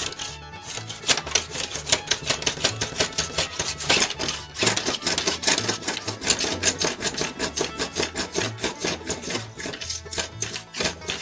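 Small hand plane scraping dried excess glue off a glued-up rod blank in quick strokes, several a second, over background bluegrass music.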